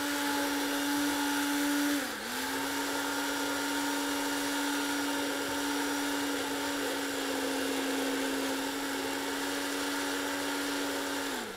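Hand-held immersion blender running steadily at the surface of a coffee, sugar and egg-white liquid, whipping air into it to build a foam. Its motor whine is steady, dipping briefly in pitch about two seconds in and again at the end.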